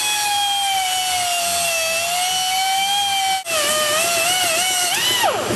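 High-pitched whine of a power cutting tool cutting through a steel coil spring, its pitch sagging under load. It breaks off briefly about three and a half seconds in, then wavers and winds down just before the end.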